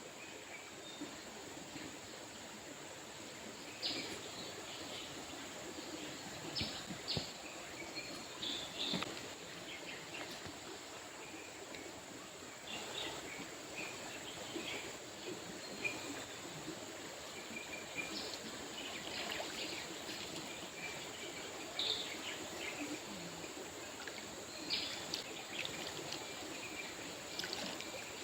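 River water running steadily, with scattered short, high bird chirps over it and a steady high hiss.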